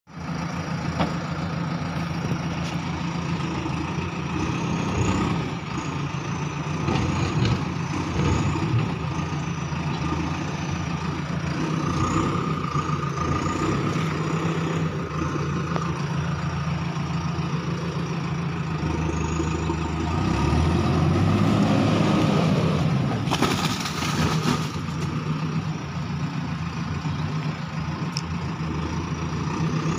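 Backhoe loader's diesel engine running steadily as the machine works its way down a steep rocky slope. About two-thirds of the way through, the engine note deepens and grows louder under load, followed by a brief rush of noise.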